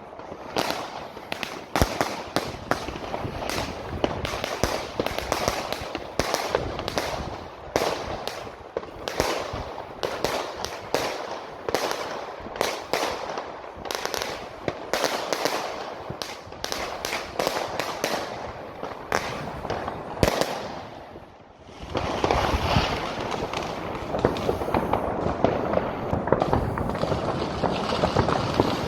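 Many fireworks going off at once: rapid, overlapping bangs and crackling. About 21 seconds in it briefly thins out, then comes back as a denser, more continuous crackle.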